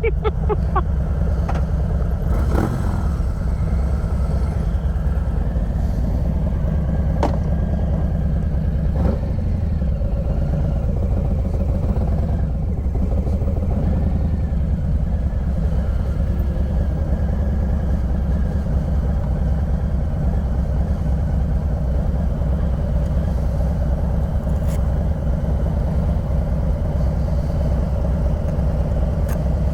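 Motorcycle engine running steadily at low speed, with a few light clicks in the first ten seconds.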